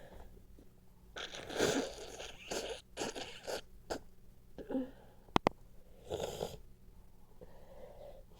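A congested nose being sniffed and blown in a run of short, noisy nasal bursts, the loudest about a second and a half in. Two sharp clicks come just past halfway.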